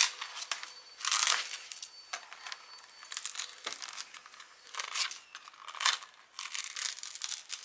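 Gold glitter heat transfer vinyl being weeded: the stiff waste glitter peeled and lifted off its carrier sheet with a weeding tool, crackling and crinkling in short bursts, loudest about a second in.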